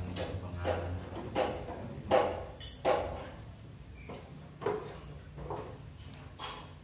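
Light clinks and knocks of spoons and dishes on plates as several people eat, a few seconds apart and uneven in spacing, with a low steady hum underneath.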